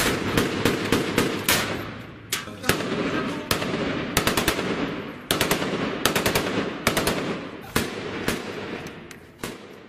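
Assault-rifle fire in a street battle: irregular single shots and short rapid bursts, each with an echo trailing off the buildings, growing fainter over the last couple of seconds.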